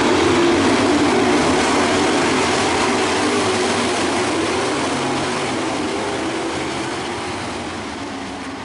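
Several dirt-track Pro Stock race cars running at speed, a steady mass of engine and tyre noise that slowly fades away over the last few seconds.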